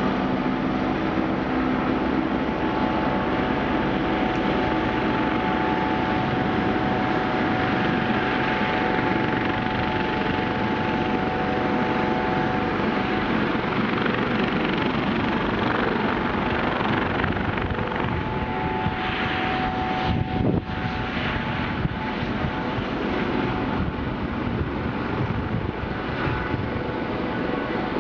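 AgustaWestland AW109 twin-turbine helicopter running: a steady, dense rotor and engine noise with faint steady whining tones, broken by one brief sharp knock about twenty seconds in.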